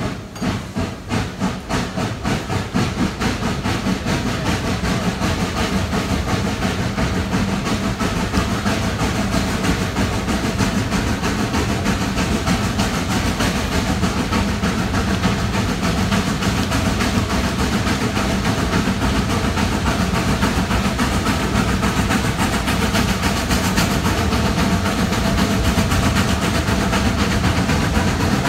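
Steam locomotive working hard, its exhaust chuffs quickening from separate beats into a rapid, nearly continuous chugging within the first few seconds, then holding steady.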